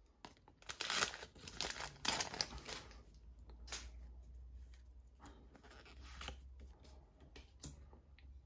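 Foil trading-card sachet crinkling and tearing as it is pulled open, loudest in the first three seconds, followed by softer rustling as the cards are slid out and handled.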